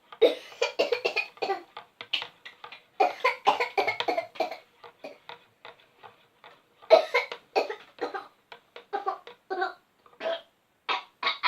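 A young girl coughing in several runs of quick, short coughs, with a break of about two seconds in the middle: a forced, put-on cough, which her father calls a pretend cough.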